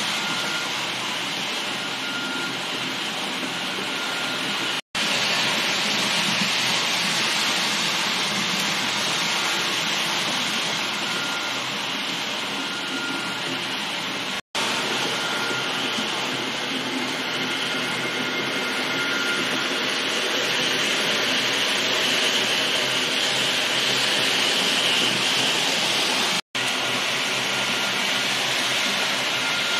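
H0-scale Roco model of an ÖBB class 1216 Taurus electric locomotive running with a train of eight four-axle tank wagons: a steady running noise on the track, with a faint tone coming and going. The sound drops out for a moment three times.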